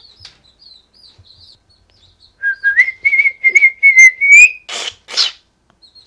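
Cockatiel whistling: a loud, held whistle starts about two and a half seconds in, wavers slightly, is broken by short clicks and rises near the end, followed by two rough, hissy calls. Faint high chirps come before it.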